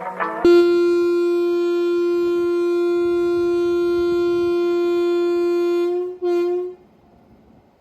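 Locomotive air horn sounding one long steady blast of about five seconds, then a short second toot at the same pitch.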